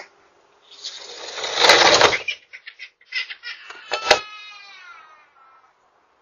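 Sliding glass patio door rolling shut along its track: a rising rush that stops abruptly, then several clicks with a sharp latch click. A long high whine falling slowly in pitch follows and fades.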